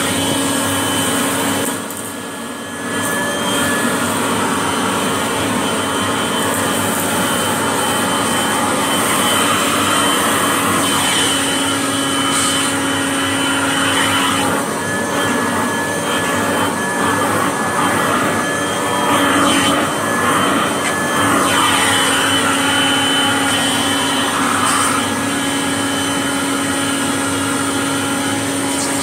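Vacuum cleaner running steadily as it picks up the remains of a mess-test spill on carpet. It dips briefly about two seconds in, with irregular crackling through the middle.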